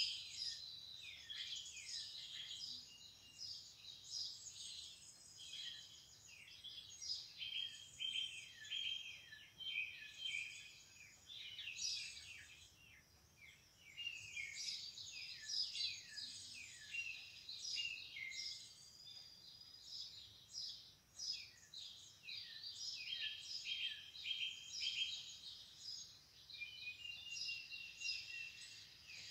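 Birds chirping and singing, many short calls and quick downward-sweeping notes overlapping almost without pause, with a brief lull about halfway through.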